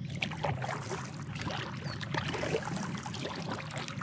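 Kayak paddle blades dipping into calm river water beside an inflatable packraft, with splashing and dripping in quick, irregular bursts.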